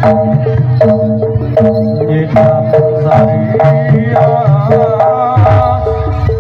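Live dance-accompaniment music: hand-drum strokes on an even beat, about two and a half a second, over held melodic notes, with some sliding notes in the second half.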